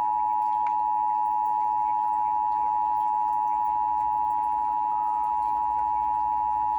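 Emergency Alert System two-tone attention signal, the 853 Hz and 960 Hz tones sounding together. It is a steady, unbroken high tone that announces an emergency alert message.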